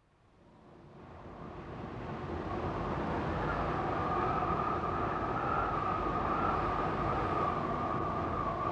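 Steady low rumble with a faint steady hum above it, fading in from silence over the first three seconds.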